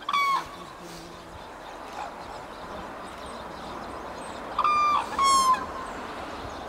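Red-crowned cranes calling: one loud, level-pitched call at the start, then two more in quick succession about five seconds in.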